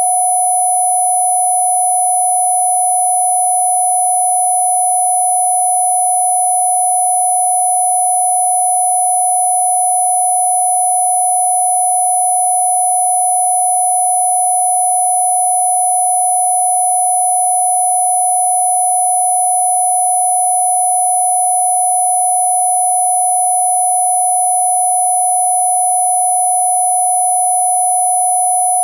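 Electronically generated Rife-frequency pure tone: one steady, unchanging mid-pitched sine tone, with much fainter high steady tones above it.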